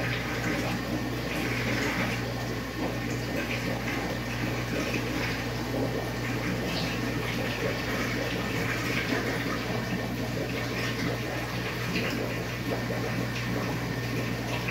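Aquarium water splashing and trickling steadily over a constant low electrical hum from the tank's pump.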